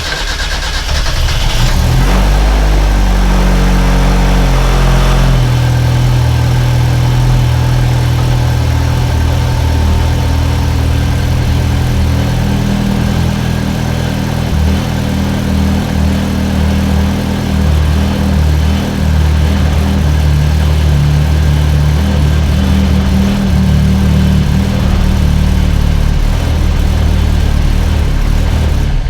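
Car engine just started, its revs climbing over the first few seconds and then settling into a steady idle. It is running after adjustable cam gears were fitted and the exhaust cam retarded, with the base ignition timing not yet reset, so the timing is off.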